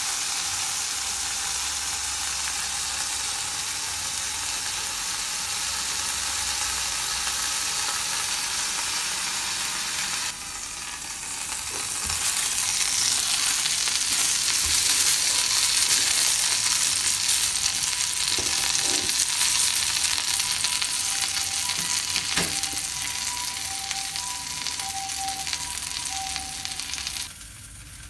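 Food sizzling in a frying pan just after cooking sake has gone in. The sizzle grows louder about twelve seconds in and falls away sharply near the end.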